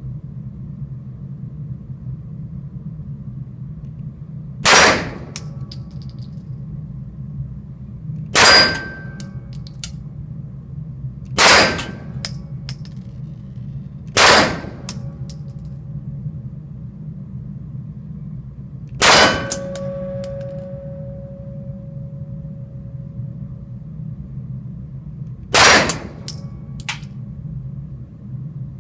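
Six single gunshots a few seconds apart, each followed by faint metallic pings of rounds hitting steel targets; after the fifth shot a plate rings for about three seconds. A steady low rumble runs underneath.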